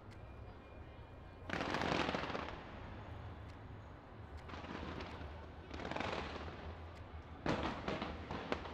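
Fireworks going off in rapid crackling volleys. The first burst starts about a second and a half in, another comes around the middle, and a third near the end.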